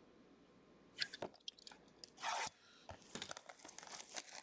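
Plastic shrink wrap being torn and crinkled off a trading-card hobby box. A couple of sharp crackles come about a second in and a short rustle about two seconds in, then a run of small crinkles from about three seconds on.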